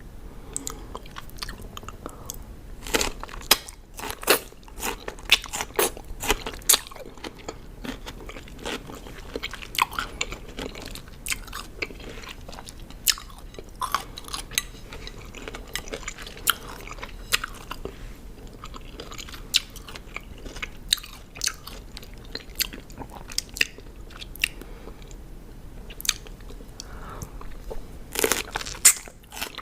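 Close-miked chewing of crisp raw cucumber: a continual run of wet crunches and crackles as it is bitten and chewed, with louder crunch clusters about three to seven seconds in and near the end.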